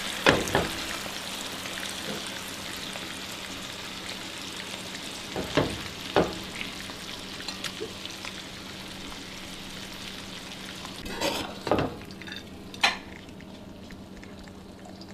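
Beef shank and its reduced gravy sizzling in a nonstick frying pan, the sizzle slowly dying down. A few sharp knocks and clinks of a spatula and spoon against the pan and plate come as the meat is served, about half a second in, twice around six seconds, and a cluster around twelve seconds.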